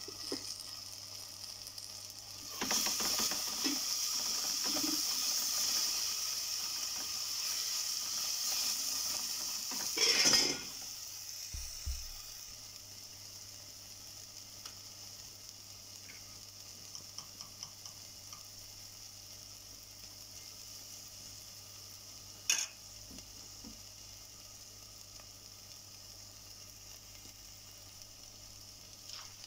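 Sliced onions and bay leaves frying in hot oil in a clay cooking pot, sizzling. The sizzle grows louder about three seconds in, peaks briefly around ten seconds in, then settles to a softer steady sizzle, with one sharp knock later on.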